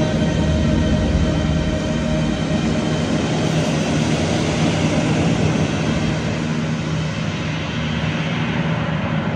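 Immersive light-show soundtrack playing through the hall's speakers: a steady rushing noise with low held drone tones beneath it, easing a little in the second half.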